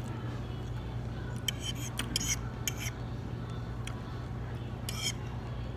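Metal fork scraping and clinking against a ceramic plate in a few short strokes, bunched about a second and a half to three seconds in, with one more near the end, over a steady low hum in the background.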